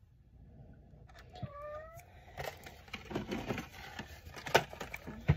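Items in plastic packaging being handled and set down: rustling and several sharp knocks, the loudest near the end. About one and a half seconds in there is a brief pitched call that rises slightly.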